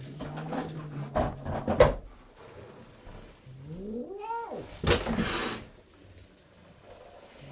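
A house cat growling low and steady, with a couple of sharp knocks, the louder one near two seconds in. Then one yowl that rises and falls in pitch about four seconds in, followed by a short noisy burst.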